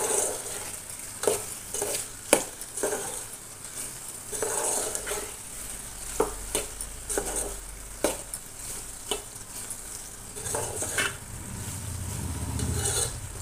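Metal spoon stirring and scraping diced ivy gourd around a metal pot, with irregular clinks against the pot, over a gentle sizzle of the vegetables frying in oil on a low flame.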